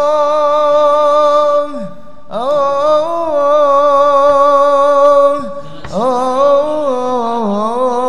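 A singer performing an Arabic devotional song (qasidah) unaccompanied, drawing out long melismatic notes with a wavering pitch. The notes come in three long phrases, with short breaths about two seconds in and again a little past five seconds.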